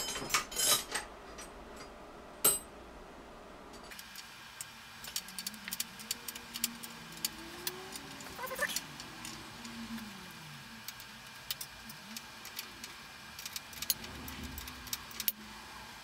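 Metal hand tools clinking a few times, then a long run of small irregular metallic ticks as a wrench works loose a crash bar mounting bolt on a motorcycle frame.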